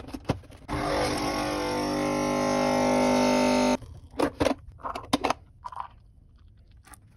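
Coffee machine running with a steady hum for about three seconds, getting slightly louder before cutting off suddenly; a few light clicks and knocks follow.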